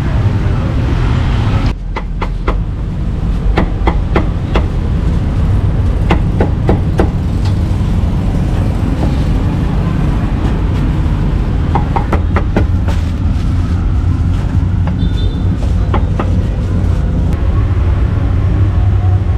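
Meat cleaver chopping meat on a round wooden chopping board: irregular runs of sharp knocks, over a steady low rumble.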